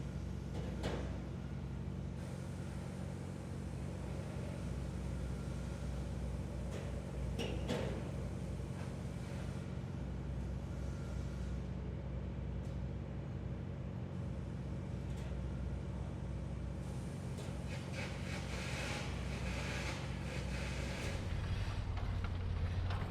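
Heavy engines running steadily with a low rumble, with a few knocks and clatters about a second in and again around seven to eight seconds in, and busier clatter near the end.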